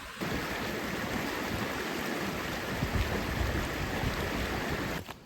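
River water rushing steadily. The sound cuts in abruptly just after the start and stops abruptly near the end.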